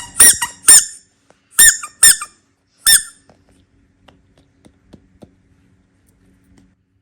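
About six short high-pitched squeaks, each rising then falling in pitch, over the first three seconds, followed by faint light ticks.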